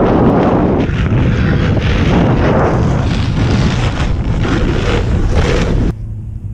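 Strong wind buffeting the microphone of a camera carried by a snowkiter riding at speed, a loud gusty rush. About six seconds in it drops suddenly to a quieter, steadier hiss.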